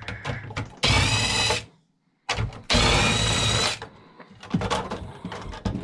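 Power drill running in two short bursts of about a second each, spinning out screws during the teardown of a salt chlorine generator, followed by light handling of parts.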